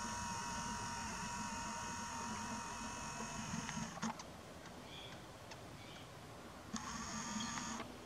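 Camcorder's electric zoom motor whining as the lens zooms out, a steady high whine lasting about four seconds; it starts up again for about a second near the end as the zoom moves back in.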